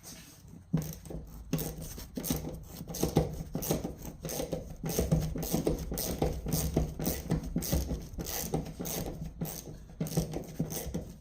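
Hand ratchet clicking rapidly and irregularly as a rusted seat-belt anchor bolt in a 1984 Jeep Grand Wagoneer's floor is worked, with scraping and rattling of tool and metal. The clicking starts about a second in.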